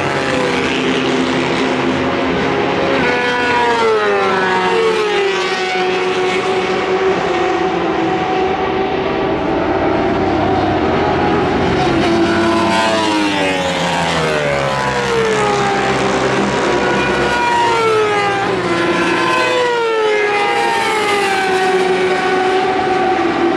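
Sport motorcycles running hard down a racetrack straight, passing one after another with several engines heard at once; each engine note falls in pitch as the bike goes by.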